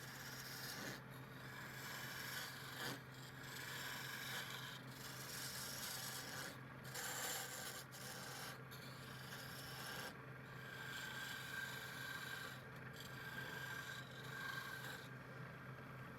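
Wood being turned on a lathe: a tool scrapes against the spinning wood in passes of one to two seconds, with short breaks between them, over a steady motor hum.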